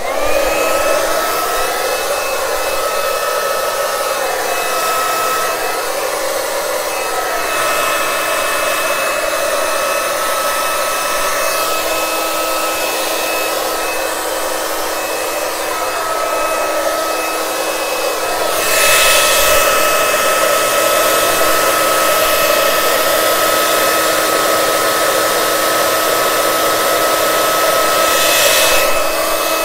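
Handleless blow dryer switching on, spinning up and running steadily: rushing air with a steady high whine. About two-thirds of the way through, the rush of air grows louder for about ten seconds, then drops back.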